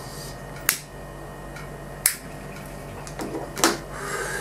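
A cigarette lighter being flicked: two sharp clicks about a second and a half apart, then a softer cluster of small noises just over three seconds in, over a faint steady hum.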